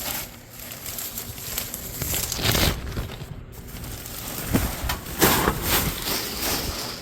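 A bag of scrap copper wire being handled, rustling and crinkling in irregular bursts, loudest about halfway through and again near the end.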